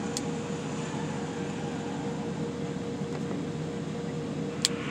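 Steady low machinery hum inside a truck cab, with a faint steady tone above it. A single sharp click near the end.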